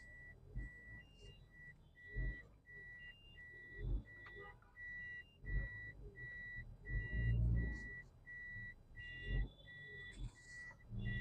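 Electronic warning beeper giving short high beeps about three times a second, with a higher beep every couple of seconds. Under it come irregular low thumps and rumbles, the loudest about seven seconds in.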